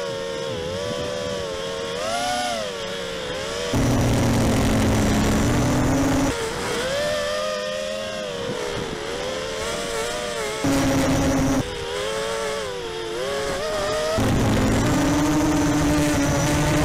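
FPV racing quadcopter motors and propellers whining, the pitch rising and falling with the throttle. The sound switches abruptly several times between a higher, wavering whine and a louder, lower, steadier buzz.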